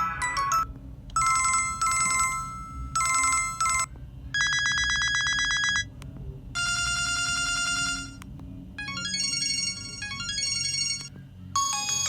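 LG KU4000 mobile phone playing its built-in ringtones one after another, each for a second or two with short pauses between: pulsed electronic beeps, then two buzzy trilled rings, then a short synthesized melody.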